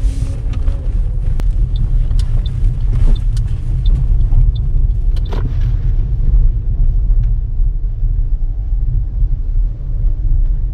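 Steady low rumble of a Toyota car being driven, engine and road noise heard inside the cabin. A few light clicks sound in the first half.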